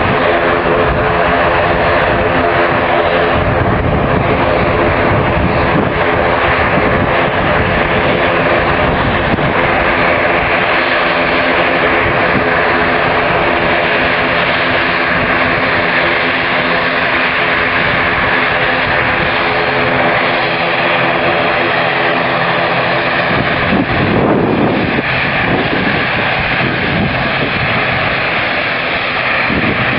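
ATR 72 twin turboprop taxiing, its propellers and engines giving a loud, steady droning hum made of several even tones. Toward the end the even tones drop away and the sound turns rougher.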